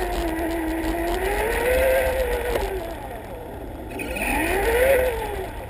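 Electric motor and drivetrain of a Traxxas Summit RC truck whining, its pitch rising and falling with the throttle: it speeds up, eases off, speeds up again and then quiets near the end.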